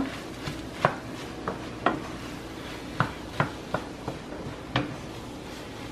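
Spoon stirring cauliflower fried rice in a stainless steel skillet, giving irregular sharp clinks and scrapes against the pan, about seven in all.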